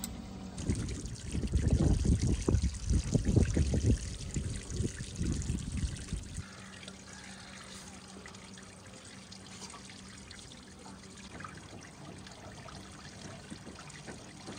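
Water trickling steadily. For about the first six seconds it is under heavy, uneven low rumbling that then stops, leaving the trickle and a faint steady hum.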